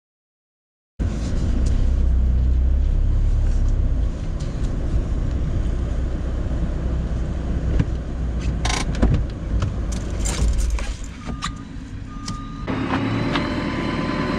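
Van driving slowly, heard from inside the cab: a low engine and road rumble with scattered rattles and clicks. The first second is silent. About two seconds before the end, the sound cuts to an engine running in the open yard.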